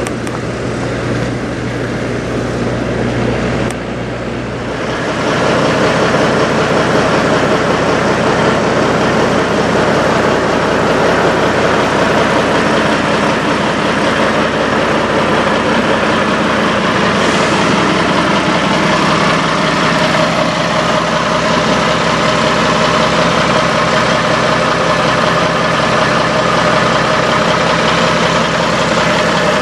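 Semi truck diesel engine idling steadily, heard close up. A quieter steady hum gives way to a louder idle about five seconds in.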